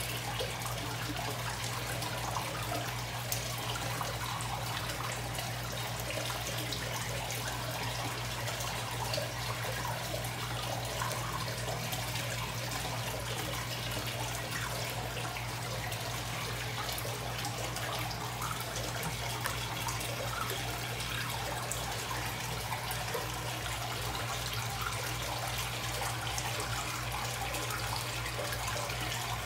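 Steady running and trickling water in an indoor fish pond, the flow from its filter, over a steady low hum.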